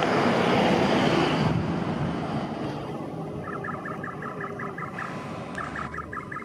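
Road traffic noise of a car passing close for the first second and a half, then electronic level crossing warning bells ringing rapidly, about five strokes a second, with a short break about five seconds in.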